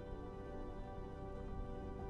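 Calm instrumental background music with held, sustained notes.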